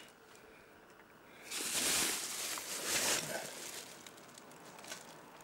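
Rustling and scraping of VHS cases and rubbish being shifted about, in a surge of just under two seconds about a second and a half in, with two peaks; faint before and after.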